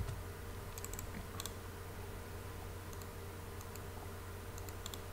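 Scattered faint clicks of a computer keyboard and mouse, a few at a time, over a steady low hum.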